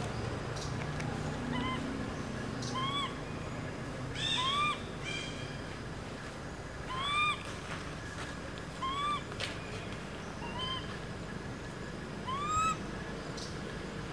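Long-tailed macaque coo calls: about eight short calls that each rise and then fall in pitch, spaced one to two seconds apart.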